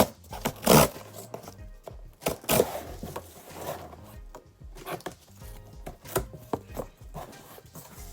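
A cardboard shipping box being handled and opened, with a series of sharp scraping and rustling strokes, loudest in the first second. Soft background music plays underneath.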